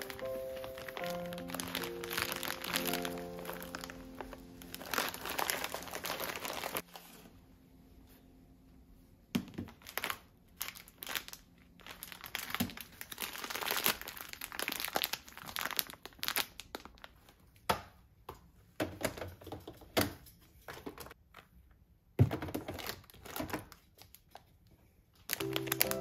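Plastic food bags crinkling and rustling as they are handled, with scattered light clicks and knocks. Soft background music plays for the first several seconds, stops, and comes back near the end.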